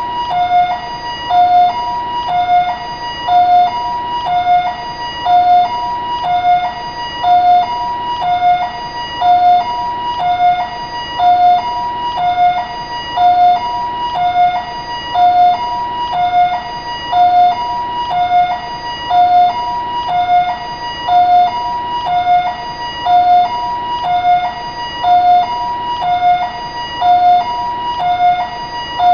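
Taiwanese ambulance siren sounding its two-tone hi-lo call: a high and a low tone taking turns, about one high-low cycle a second, repeating steadily.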